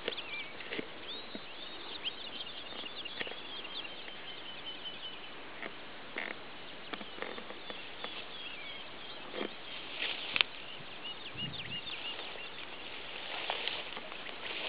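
Small birds chirping with many short, high notes over a steady outdoor hiss, with scattered clicks and rustles and one sharper knock about ten seconds in.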